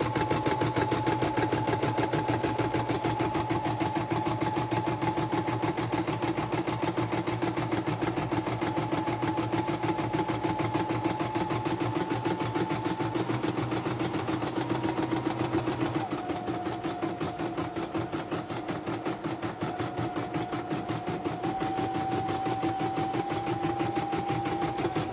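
YOKO portable computerised embroidery machine stitching a lettering design, a fast even run of needle strokes over a steady motor whine. The whine drops slightly in pitch about two-thirds of the way through, then steps up twice near the end. It is a test-stitch run after the machine was serviced.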